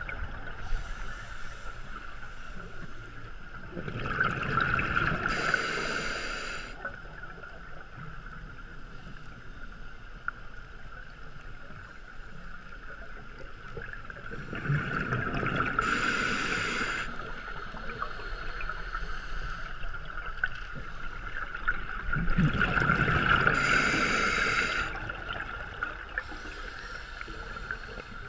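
Scuba regulator breathing heard underwater: three long rushes of exhaled bubbles, one about every nine seconds, with fainter hisses of inhalation between them. A steady high hum runs underneath.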